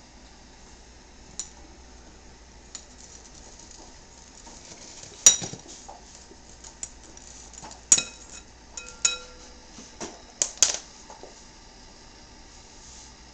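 Glass fishbowl clinking and briefly ringing as a cat noses into it and knocks the candy canes inside against the glass. The clinks are scattered and get more frequent in the second half, with the loudest about five seconds in.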